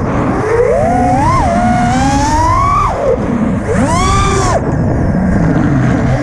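The brushless motors of a 5-inch FPV freestyle quadcopter (T-Motor Blackbird V2, 1950 kV, tri-blade props) whining, their pitch sweeping up and down with the throttle. A sharp surge and drop in pitch comes about four seconds in. A steady low rush of air noise runs underneath.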